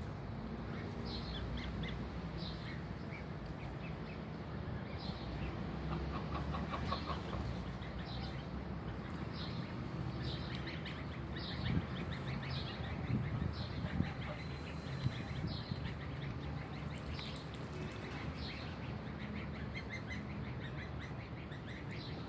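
Goslings peeping: short, high chirps repeated about once a second, over a steady low background noise, with a brief lower call about six to seven seconds in.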